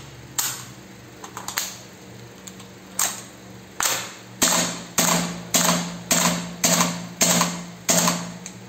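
M4-style airsoft rifle running on compressed air through a hose into its magazine, firing single shots, each a sharp crack with a short echo. A few shots come spread out, then a steady string of about one shot every 0.6 s from about halfway.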